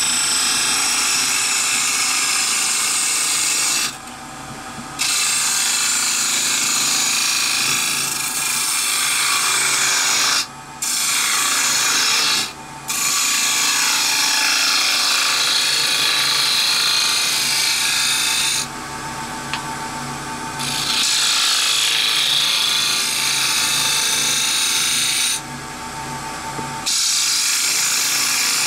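Wood lathe spinning a walnut box cap at speed while a turning tool cuts its outside: a steady rushing cut of shavings over the lathe's hum. The cut stops briefly about five times as the tool comes off the wood.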